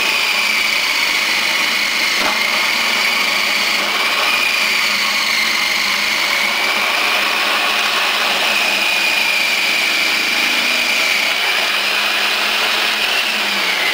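Electric food processor running steadily while shredding carrots, pressed down the feed tube onto the shredding disc; its motor whine rises and dips slightly in pitch as the load changes.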